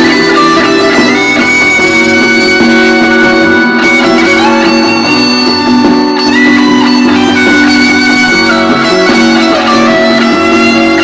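Fender American Standard Stratocaster HSS electric guitar played with long, held notes, sliding up to new pitches about a second in and again about six seconds in.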